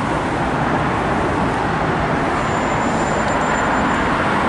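Steady street traffic noise, an even continuous hum of cars with no distinct events.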